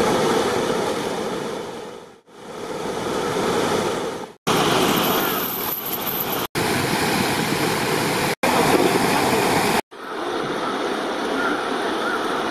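Steady rushing of shallow river water pouring over a weir, broken off abruptly several times where short clips are joined.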